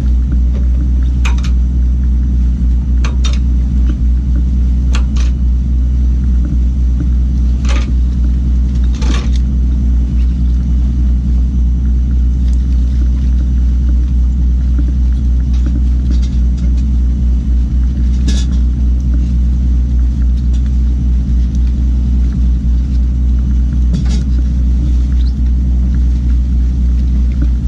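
Fishing boat's engine running steadily with a loud, low drone, with a scattering of short clicks and knocks over it.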